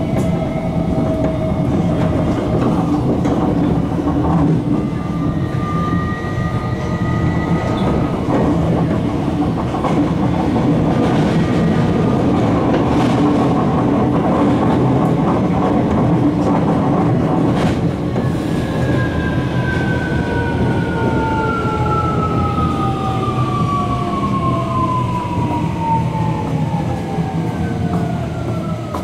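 Tokyo Metro 17000 series train's Hitachi SiC-VVVF inverter and traction motors heard from inside the car over steady wheel-on-rail running noise. From about two-thirds of the way in, a whine of several tones falls steadily in pitch as the train slows for a station.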